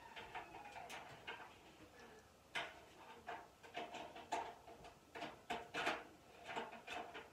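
Irregular light metal clicks and knocks from hands working inside a steel barrel smoker during assembly, handling its parts and fasteners.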